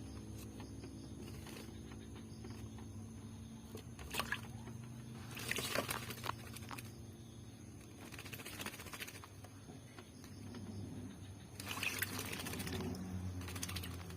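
Oriental magpie-robin bathing, splashing in water in several short bursts over a faint low hum.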